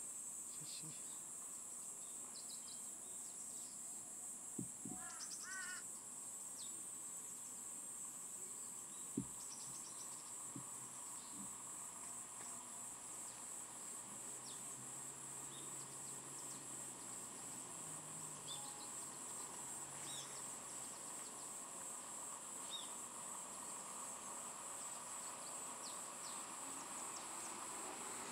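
Steady high-pitched chirring of insects in woodland, with scattered short bird chirps and a brief repeated bird call about five seconds in. Two faint sharp clicks stand out, one near five seconds and one near nine.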